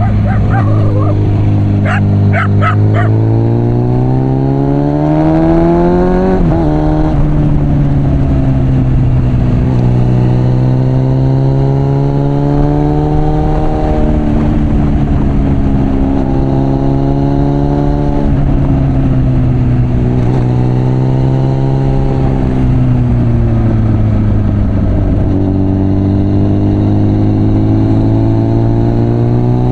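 Suzuki GSF 650 Bandit's inline-four engine through a Mivv exhaust, under way on the road: the revs climb for about six seconds, fall sharply, then rise and fall several more times as the throttle is worked.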